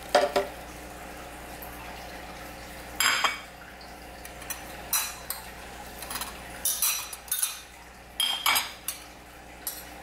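Kitchenware clinking: about ten light, irregular taps and clinks of a utensil and dish as powdered milk is tipped and tapped into a blender jar.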